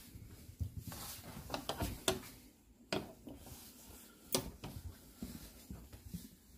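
Footsteps and handling noise in a narrow train-car corridor: soft irregular thuds with scattered rubs and sharp clicks, the loudest clicks about two seconds and four and a half seconds in.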